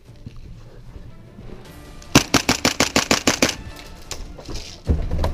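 Full-auto burst from an airsoft gas blowback replica, a Tokyo Marui MP7A1 on green gas: a fast string of about a dozen sharp cracks, around nine a second, lasting about a second and a half, starting about two seconds in. Just before the end, a dull low bump.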